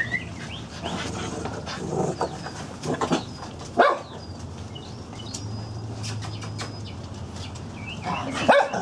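Small dogs barking a few times, in short separate barks, with the sharpest bark just under four seconds in and another near the end.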